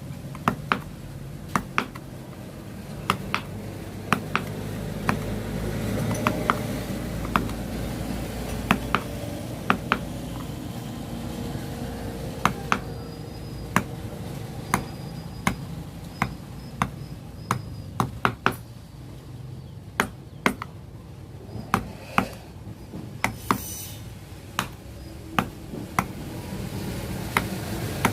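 Wood-carving chisel tapped with a mallet, cutting into wood: sharp, irregular taps, about one or two a second. A low rumble swells and fades in the first half.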